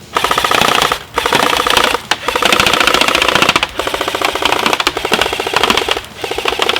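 Echo 1 Red Star LMG airsoft electric gun (AEG) firing full auto from its drum magazine: the gearbox cycling in rapid, even clicks, in several bursts with short breaks between, the longest about two seconds.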